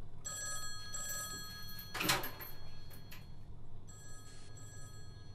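Red desk telephone ringing: a ring of about two and a half seconds, a short pause, then the ring starts again about four seconds in. A short loud hissing rush cuts across the first ring about two seconds in.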